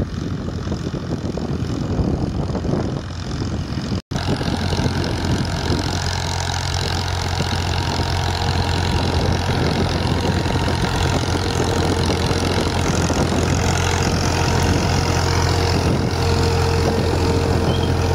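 A farm tractor's diesel engine running at a steady pace as it pulls a seed drill through ploughed soil. It is distant and faint at first, then, after a sudden cut about four seconds in, close and loud with a steady low hum.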